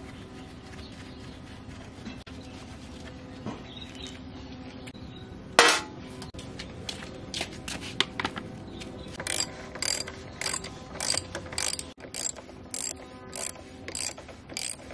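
Hand ratchet wrench clicking in short repeated strokes, about one and a half a second, working a bolt. A single sharp metal knock sounds about halfway through, before the strokes start.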